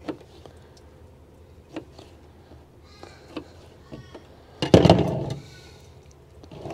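A knife slicing squid tubes into rings, clicking on the chopping board a few times. About five seconds in comes one loud, short animal call.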